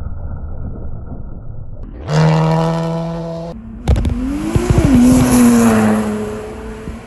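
Rally cars at full throttle on a gravel stage, in a quick run of clips: a low engine rumble, then an engine held at steady high revs, then a red BMW E30 rally car passing close with gravel spattering, its engine note rising and then falling as it goes by.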